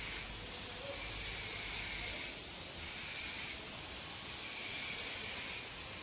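A high hiss that comes and goes in spells of about a second, with short gaps between.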